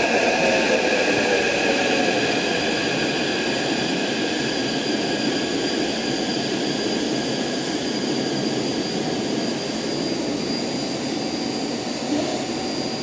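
Taipei Metro C371 series electric train braking along the station platform. Its traction motors' whine falls in pitch over the first couple of seconds, then it rolls slowly on with a steady rumble and a steady high-pitched hum.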